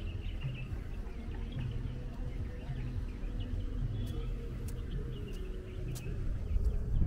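Outdoor ambience: a steady low rumble with faint, indistinct chatter of people.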